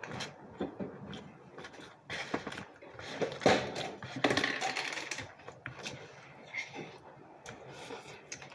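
Close-up eating sounds: chewing and mouth clicks and smacks on a pastrami sandwich, coming in irregular bursts with a few sharper clicks.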